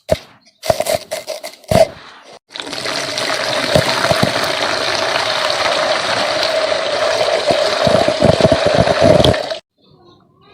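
A few sharp crunches of red dirt breaking, then water poured steadily onto the dirt for about seven seconds, with small cracks under it, cutting off suddenly near the end.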